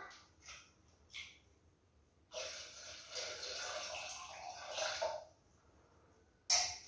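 Rinse water poured off washed peas from a plastic basin into a metal pot, running for about three seconds. A single sharp clank near the end, a metal bowl set down on the tiled floor.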